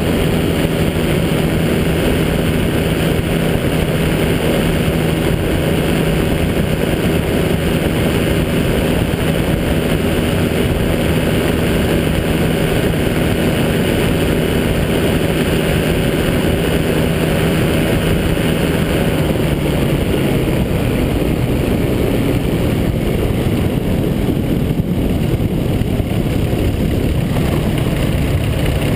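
Rotax 503 two-cylinder two-stroke engine of a Quicksilver GT400 ultralight running steadily in low flight, with wind rush on the airframe. Its note drops a little about two-thirds of the way through.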